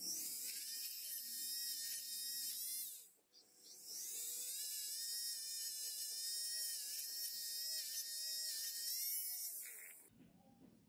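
Pen-style electric rotary tool spinning a small bit against the steel parts of a gun, a high-pitched whine. It runs for about three seconds, winds down briefly, then runs again until it stops near the end.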